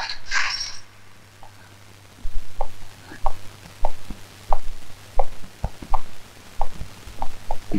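Footsteps walking at an even pace, about one and a half steps a second, starting about two seconds in after a brief music ending.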